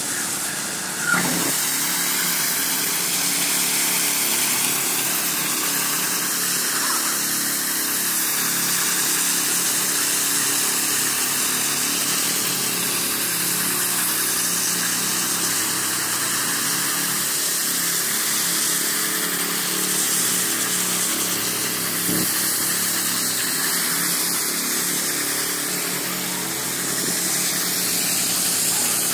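Walk-behind concrete power trowels, their small engines running steadily as the rotating blades float a freshly poured concrete slab.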